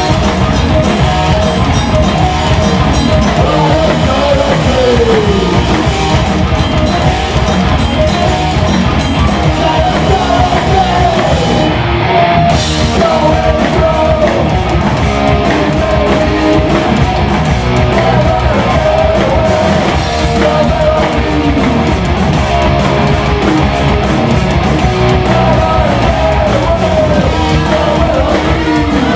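Live heavy metal band playing loud: distorted guitars and a drum kit with constant cymbal hits, and a lead melody that slides down in pitch every few seconds.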